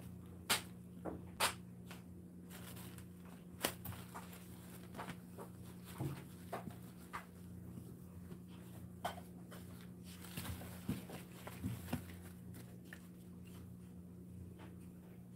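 Dachshund puppies scuffling and playing, with scattered sharp clicks and taps of paws and claws on the playpen floor and bedding, a few louder knocks near the start. A steady low hum lies under it.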